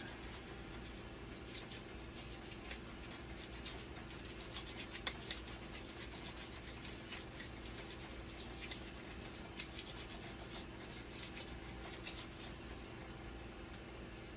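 Irregular crackly rubbing and rustling of nitrile-gloved hands handling small parts, over a steady low hum.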